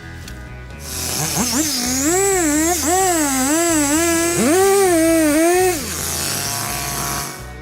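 A small motor, such as a power tool's, revs up, wavers up and down in pitch for about four seconds and then winds down, over a steady hiss.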